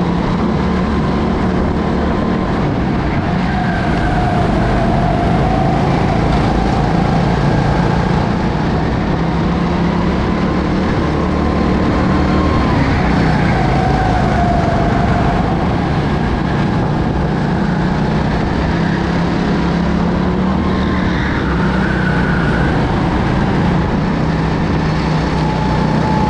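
Go-kart engine heard onboard at racing speed, its revs climbing and dropping several times as the kart laps the track, over a steady rush of wind and tyre noise.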